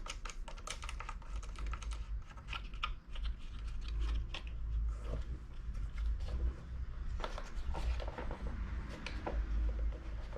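Irregular light clicks and taps, like small hard objects being handled, over a low steady hum.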